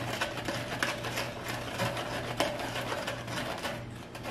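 A spoon stirring and scraping around the inside of a foam cup of slime mixture, glue with sodium tetraborate, in a quick run of short rubbing strokes. The mixture is starting to thicken. A faint steady low hum lies underneath.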